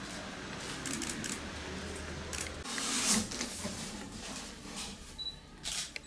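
Handling noise of a cardboard box being carried, set down and opened: short rustles, scrapes and clicks, the loudest a rustling burst about three seconds in, with a few sharper clicks near the end.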